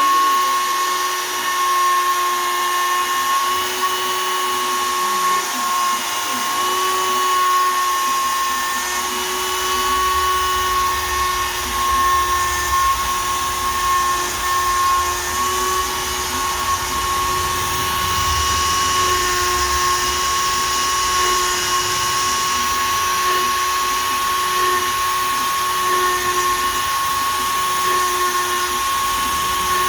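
Shapeoko 3 XL CNC router's spindle running at 20,000 rpm with a steady high whine, a 1/8 in two-flute downcut spiral bit cutting poplar. A lower rumble comes in about a third of the way through and fades again near the end.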